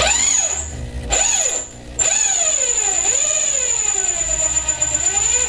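Corded electric drill boring a 3/8-inch hole through the car's sheet-steel underbody, the bit squealing on the metal in a pitch that wavers up and down over a steady high motor whine. The drilling eases off briefly about a second in and again just before two seconds.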